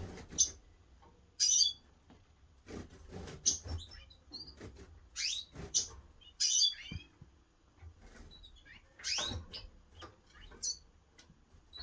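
Caged canaries and finches chirping: short, high calls scattered irregularly, with faint clicks and rustles between them.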